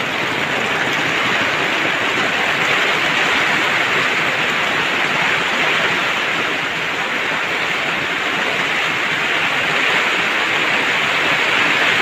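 Heavy rain mixed with strong wind pouring steadily onto a hut's tarpaulin roof: a dense, even hiss with no let-up.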